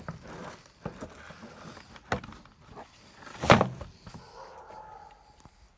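Handling noise of a cordless drill and its plastic carry case being taken out and moved: scattered clicks and rustles, with one loud plastic knock about three and a half seconds in.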